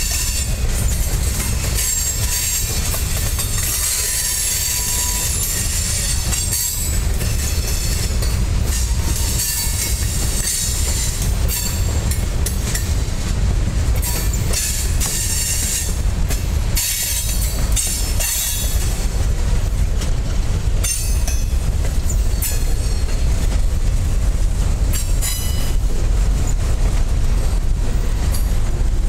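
Norfolk Southern freight train's tank cars and boxcars rolling past with a heavy steady rumble and clicking wheels. High-pitched wheel squeal rides over it, strongest in the first half.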